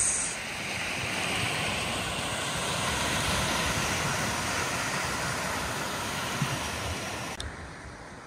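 Small waves breaking and washing onto the shore, a steady rushing surf. About seven seconds in, the sound cuts suddenly to a quieter, duller hiss.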